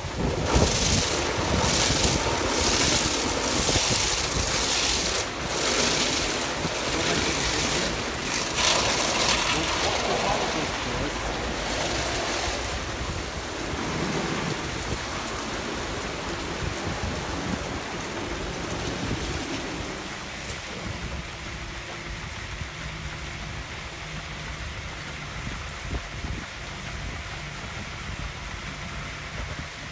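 Automatic rollover car wash at work: rotating brushes scrubbing a car amid spraying and splashing water, a steady wet rushing with repeated surges. Loudest for the first dozen seconds or so, then quieter.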